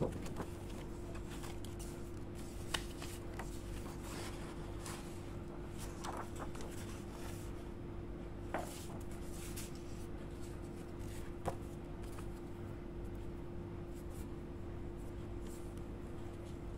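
Paper rustling and sliding as sheets and photo cards are handled, with a few sharp taps of paper or card. A steady hum runs underneath.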